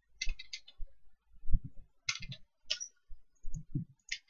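Computer mouse and keyboard clicking in a few short clusters, with a low thump about a second and a half in.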